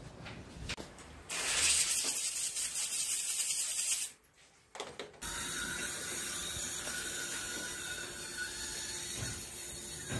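Dental unit instruments hissing during treatment: a loud spray for about three seconds, then after a brief gap a steadier, softer hiss with a faint high whine.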